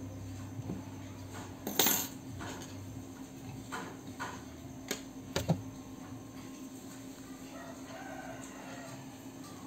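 Hands handling a crochet piece and a metal crochet hook on a tabletop: a sharp knock about two seconds in, then a few lighter taps and clicks, over a steady low hum.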